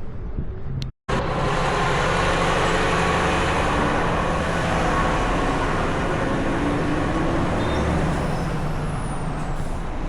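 Steady, loud noise of a vehicle in motion, starting abruptly after a moment of silence about a second in.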